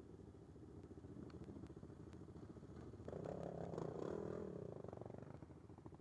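ATV engines running at low speed in a slow-moving line, with one engine revving up louder for about two seconds midway before settling back.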